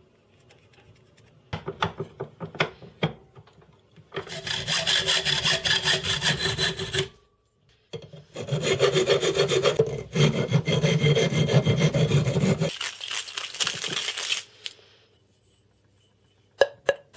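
Metal pipe clamped in a bench vise being cut and filed by hand, with quick back-and-forth metal-on-metal strokes in two long runs and a short break between them. A few light knocks and handling clicks come before and near the end.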